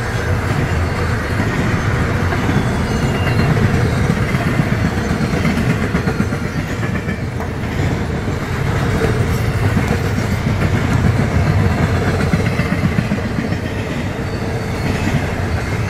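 Norfolk Southern intermodal freight train passing at track speed: a steady, loud rumble of wheels on rail with clickety-clack over the rail joints.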